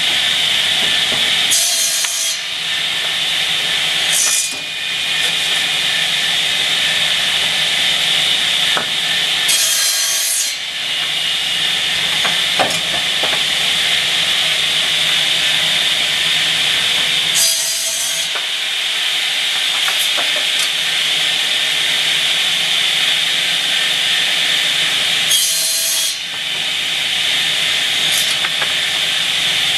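Double-head circular saw for pallet stringers running steadily, with a short, louder cut about every eight seconds, four in all, as the blades trim the ends of wooden stringers.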